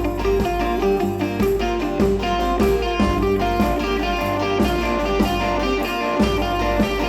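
Background music led by guitar, with a steady beat and bass.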